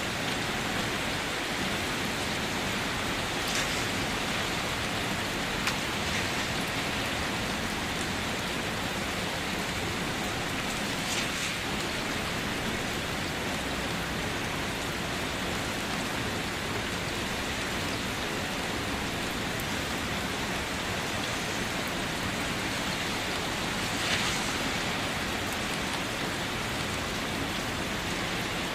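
Steady rain drumming on a car's body and roof, an even hiss of drops, with a few louder single splashes standing out now and then.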